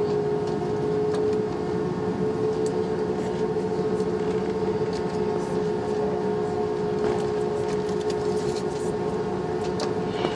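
Airbus A340-600's four Rolls-Royce Trent 500 jet engines heard from inside the cabin: a steady hum with a constant tone, scattered light clicks and rattles as the aircraft rolls on the ground.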